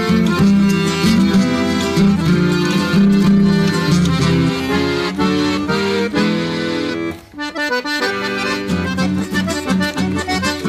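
Chamamé played on piano accordion with guitar accompaniment, an instrumental passage without singing. The music breaks off briefly about seven seconds in, then picks up again.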